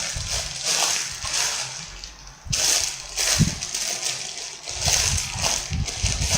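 Crinkly plastic packaging rustling in irregular bursts as a squishy toy and its wrapper are handled, with small knocks and bumps from handling.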